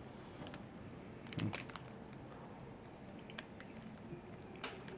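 Faint biting and chewing of a small pandan cookie, with a cluster of crisp clicks about a second and a half in and a few more near the end.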